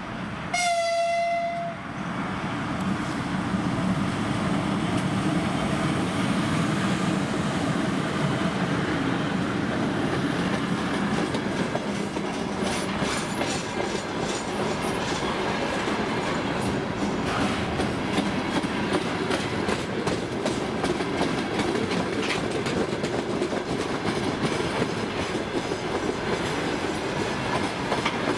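The 2ES6 electric locomotive sounds one short horn blast about a second in. Then a long freight train rolls past close by: a steady rumble of wagons, with the wheels clattering over the rail joints more clearly in the second half.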